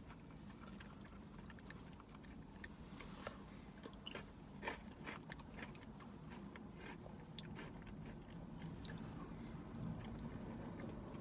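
Faint eating sounds: a plastic spoon clicking and scraping in a cup of Oreo ice cream, and chewing, as scattered soft clicks.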